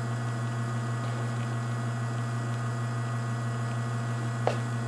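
Rocket espresso machine's pump humming steadily while pulling a shot of espresso, with a short click near the end.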